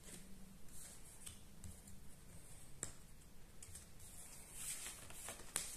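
Faint handling sounds of stiff cardboard flashcards on a tabletop: soft swishes as a card slides and a few light scattered clicks and taps as it is set down and pressed flat.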